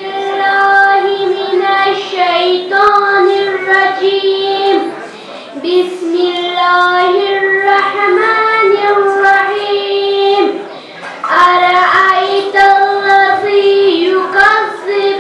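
A child's high solo voice chanting melodically in long, held notes with no accompaniment, pausing for breath about five and ten seconds in.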